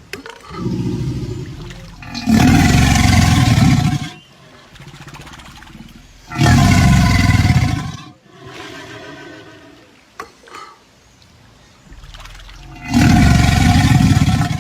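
Caiman giving deep growls: three loud, drawn-out calls a few seconds apart, with softer growls between them.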